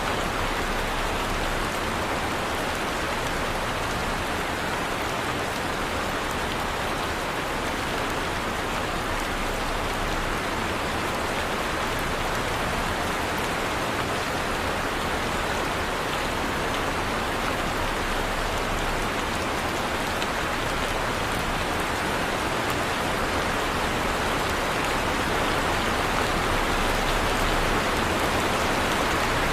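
Heavy rain falling steadily, a dense even hiss of drops on surfaces, growing slightly louder near the end.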